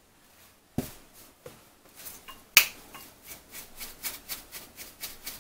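Black pepper grinder being twisted: a few separate clicks, the loudest about two and a half seconds in, then a run of quick grinding clicks, about four a second.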